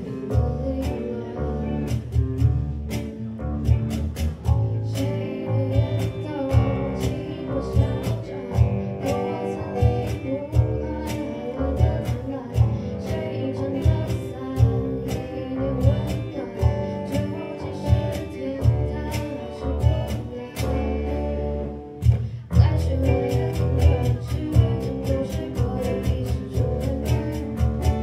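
A live band playing a pop song: a girl's singing voice over electric and acoustic guitars, bass guitar and cajon. About two-thirds of the way through the music drops briefly, then comes back with a denser, steadier beat.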